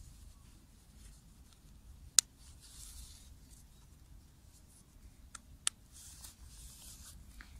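Faint rustling of a quilted dog coat being pulled on and fastened around a small dog, with two sharp clicks, one about two seconds in and a second about three and a half seconds later.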